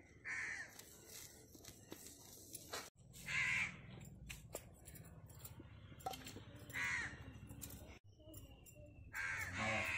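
A crow cawing: four single caws, about three seconds apart.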